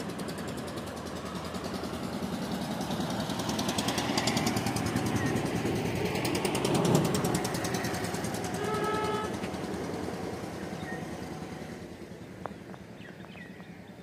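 A motor vehicle passes: its engine noise builds to a peak about seven seconds in and then fades away. A short horn beep sounds about nine seconds in.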